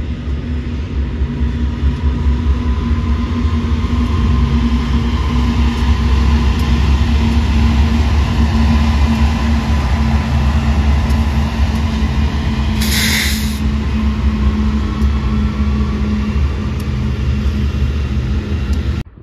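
Several BNSF diesel-electric freight locomotives pass close by, led by a GE Dash 9-44CW in warbonnet paint. Their engines make a deep, steady drone with rumbling wheels, building to a peak midway and then easing off. A brief hiss comes about two-thirds of the way through.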